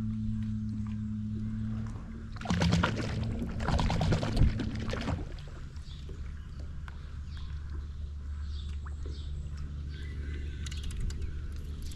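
Steady low hum of a boat motor, dropping to a lower pitch about two seconds in, with a loud rushing, splashy burst lasting about two and a half seconds.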